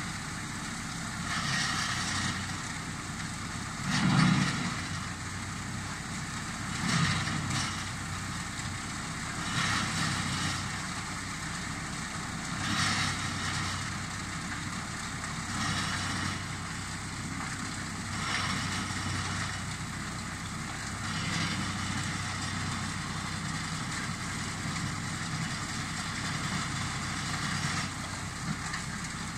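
Crane-fed wood chipper's engine running steadily at a distance, with surges of chipping noise every few seconds as brush is fed through, and a louder knock about four seconds in.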